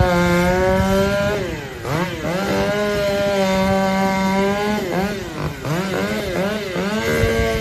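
A small high-revving two-stroke power saw engine being throttled: it holds at full revs, drops off and climbs back several times, with a run of quick blips about two-thirds of the way through.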